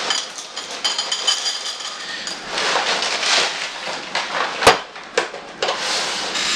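Apple Jacks cereal pouring from its box into a bowl with a run of small rattling clicks, followed by the liner bag rustling. A sharp knock a little past two-thirds through, followed by a few lighter knocks, as the cereal box is set down on the table.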